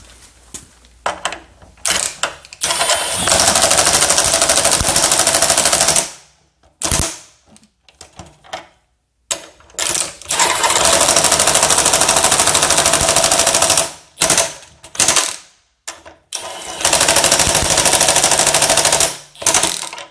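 RIDGID 18-volt brushless half-inch high impact wrench hammering in rapid impacts. It runs in three long bursts of several seconds each, with short trigger blips in between.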